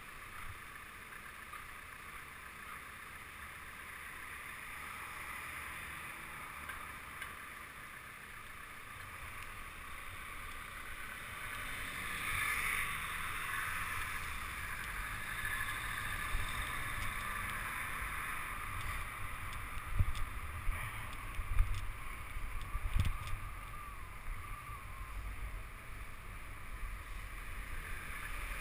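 Steady rush of wind and city traffic heard while riding a bicycle, with a cluster of loud thumps a little over two-thirds of the way through.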